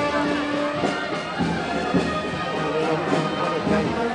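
Brass band playing a Holy Week processional march, with held brass notes.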